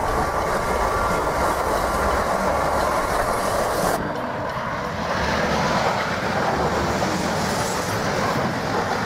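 Renfe AVE high-speed electric trains passing at speed: a steady rushing noise of the train and its wheels on the rails. The sound changes abruptly about four seconds in, with less hiss afterwards.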